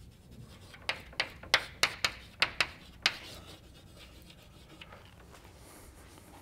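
Chalk tapping and scraping on a blackboard as words are written: a quick run of about eight sharp strokes between one and three seconds in, then it goes quiet.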